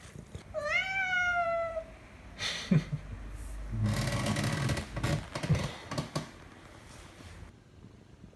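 A domestic cat meows once, a long meow that rises and then slowly falls, followed by a few seconds of rustling and several soft knocks.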